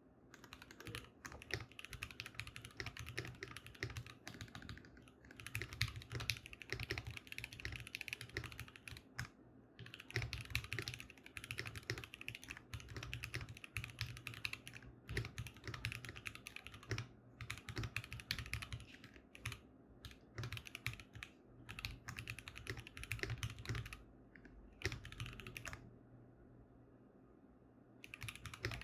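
Typing on a 60% mechanical keyboard with Gateron Pro Black linear switches, lubed and filmed, on an aluminium plate in a plastic tray case with foam: fast runs of keystrokes broken by short pauses, the longest about two seconds near the end.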